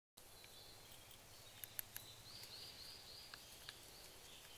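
Quiet outdoor ambience: a faint, high, wavering tone runs along in the background, with a handful of short, sharp light clicks between about one and a half and four seconds in.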